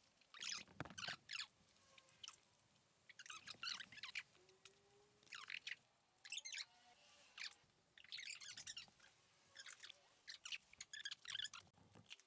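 Ratchet wrench clicking in short bursts of rapid clicks, about six times with pauses between, as bolts on an engine's cylinder head are turned.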